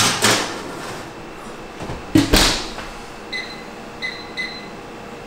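A scrape at the open oven, then the oven door shutting with a clunk about two seconds in. Three short beeps from a microwave keypad as its buttons are pressed near the end.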